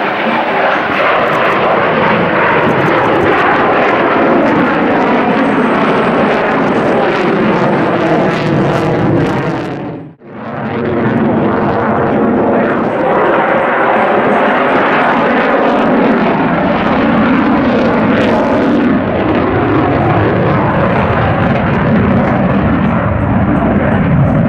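F-22 Raptor's twin F119 turbofan engines, a loud continuous jet roar as the fighter flies its display. About ten seconds in, the sound drops out sharply for an instant and comes straight back.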